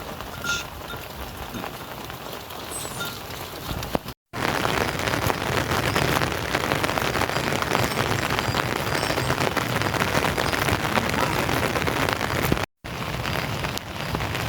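Steady rain falling, lighter at first, then heavier and denser after a brief break about four seconds in; another brief break comes near the end.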